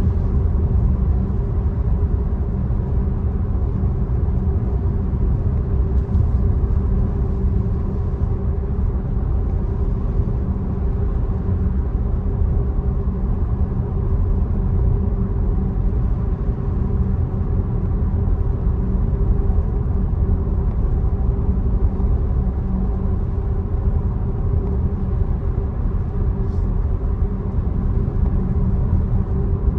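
Tesla electric car driving, a steady low rumble of tyre and road noise with a faint constant hum.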